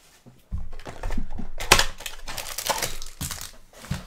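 A sealed plastic trading-card pack crinkling and rustling as it is handled, with short clicks. It starts about half a second in, with one sharper crackle a little over a second later.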